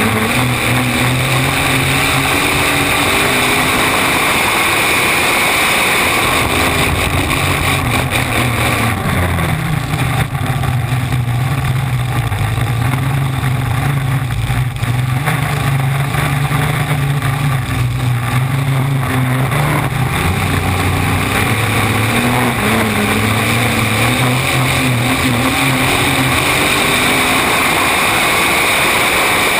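V-drive flat-bottom race boat's engine running hard at speed, its pitch shifting several times, mixed with the rush of wind and water spray past the stern.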